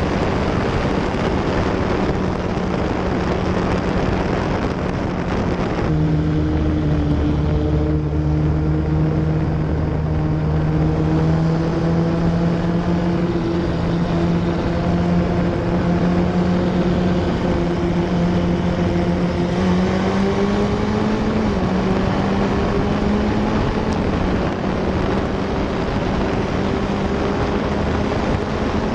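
Formula F1600 open-wheel race car's engine heard from onboard, running hard at steady high revs over loud wind rush on the microphone. The engine note changes abruptly about six seconds in, then climbs slowly and dips once at an upshift a little past two-thirds through.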